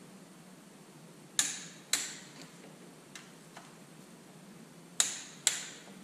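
Torque wrench clicking at its set torque on the cylinder-head bolts of a Detroit Diesel 3-53T: the bolts reaching torque in the stepped tightening sequence. Two pairs of sharp metallic clicks, each pair about half a second apart, about one and a half seconds in and again about five seconds in, with a few faint ticks between.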